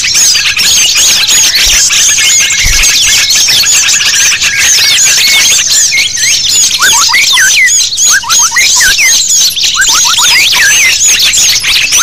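A layered bird-lure mix of many small songbirds calling at once: a dense, busy twittering of high, quick chirps. From about seven seconds in, runs of rapid sliding notes at a lower pitch join in.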